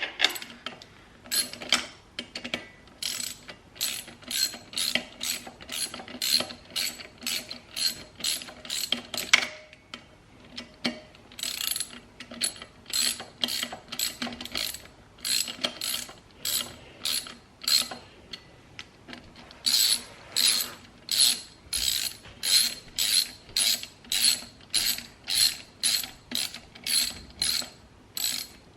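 Socket ratchet clicking as clutch bolts on a Honda CR125 two-stroke are run down snug by hand, in steady back-and-forth strokes about two clicks a second. There are short pauses between runs as she moves from bolt to bolt.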